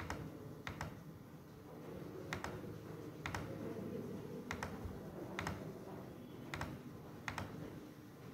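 Computer mouse button clicking, a sharp single click about once a second at uneven spacing, each click placing a vertex of a line traced in mapping software.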